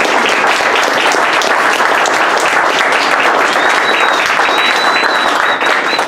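A small audience applauding, many hands clapping steadily. A thin high whistle is held over the clapping in the second half.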